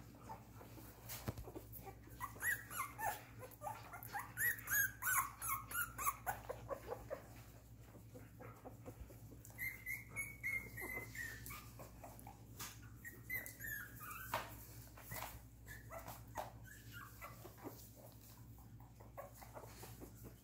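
Miniature poodle puppies whimpering and squeaking in many short high cries, thickest in the first seven seconds, with one longer drawn-out cry about ten seconds in.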